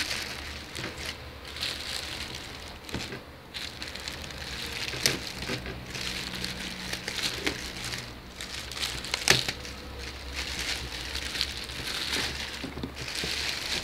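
Clear plastic wrapping crinkling and rustling as hands handle it, with a few sharp knocks, the sharpest about nine seconds in.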